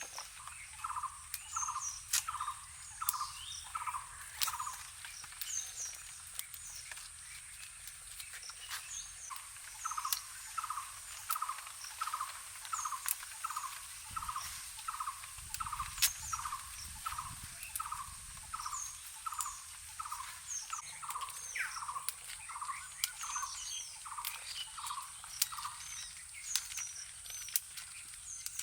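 Animal calls: a short chirping call repeated about twice a second in long runs, pausing for a few seconds after the first run, with fainter higher chirps and occasional sharp clicks over a steady high hiss.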